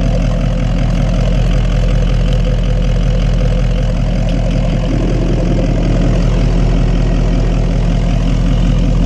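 An engine idling steadily and loudly, with a slight change in its note about halfway through.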